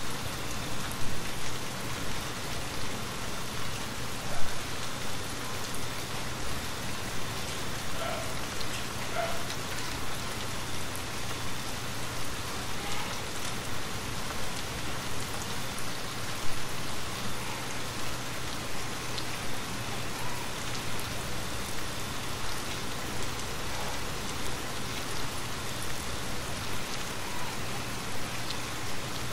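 Steady rain falling in an even hiss, with a few sharp ticks of heavier drops, the loudest about four seconds in.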